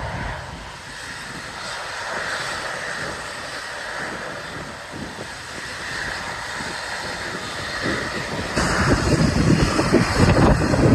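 Engine noise from an airplane taking off, a steady distant rush. About eight seconds in, wind buffeting the microphone grows loud and rumbling.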